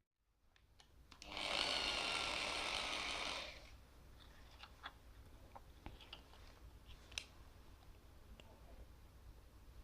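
A small electric drill runs for about two seconds, drilling a component hole in a small circuit board, followed by faint clicks and taps from handling.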